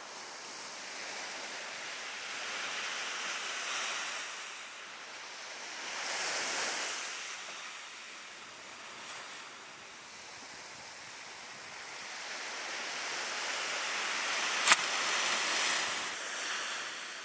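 Surf washing onto the beach in slow swells, with some wind. Near the end a single sharp pop as the homemade pneumatic bait launcher fires.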